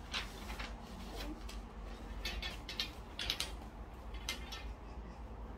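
Scattered light clicks and taps of small things being handled on a tabletop, spaced irregularly and fairly faint.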